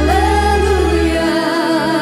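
Live worship music: women singing held notes with vibrato over a keyboard and guitar band. A sustained low bass note fades away a little past a second in.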